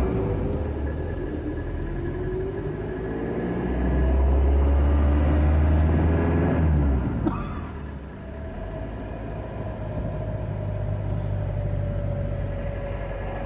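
A moving car's engine and road noise while driving: the engine climbs in pitch as it accelerates, a louder low rumble sets in for a few seconds midway, a short click comes about seven seconds in, and then a steadier engine drone slowly falls in pitch.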